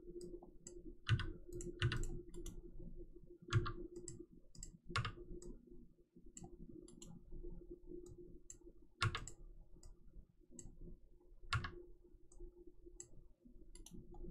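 Scattered clicks from a computer mouse and keyboard, irregularly spaced with about six louder ones, over a faint steady hum.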